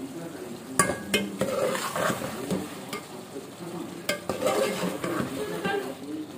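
Metal spoon stirring chicken korma in an aluminium pot, the thick masala sizzling as it fries in its own oil once the water has cooked off. The spoon clinks against the pot a couple of times about a second in and again about four seconds in.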